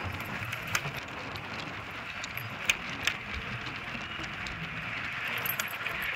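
Hooves of a Kathiyawadi mare on a dirt road: a few scattered sharp clicks over a steady hiss of outdoor road noise.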